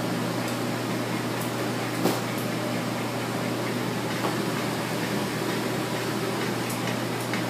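Steady low hum and even airy rush of a kitchen's ventilation fans, with one brief knock about two seconds in.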